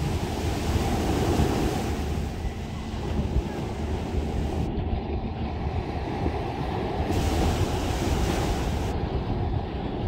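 Small waves breaking and washing up a sandy shore, the surf swelling twice, with wind rumbling on the microphone.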